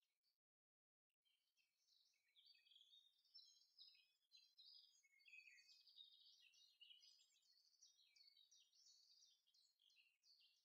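Very faint birdsong: many small birds chirping in quick short notes, dropping to complete silence for about a second near the start.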